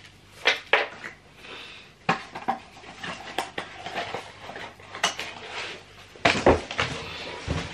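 Small cardboard box handled and opened by hand: irregular rustles, scrapes and sharp clicks and knocks, with a louder thump about six seconds in.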